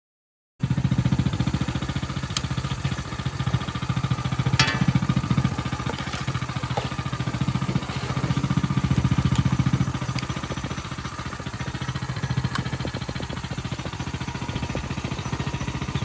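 Small 125cc single-cylinder petrol engine of a tractor kart running with a rapid low putter, getting louder for a couple of seconds around the middle before settling back.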